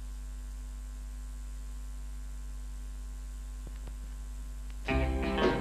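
Steady low electrical mains hum. Music starts abruptly near the end.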